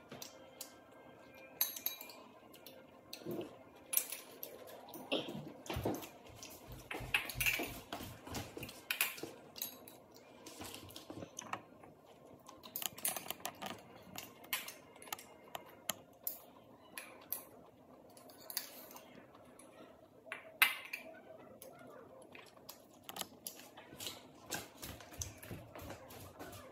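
Chopsticks clicking and scraping against ceramic bowls and plates while eating: many small, irregular clicks and knocks, with one sharper knock about two-thirds of the way through.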